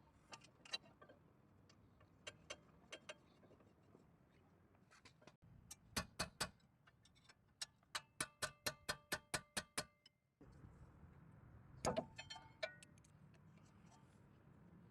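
Faint, sharp metallic clicks and clinks from hand tools and brake parts being worked. In the middle comes a quick, even run of about a dozen ringing clicks, roughly four a second.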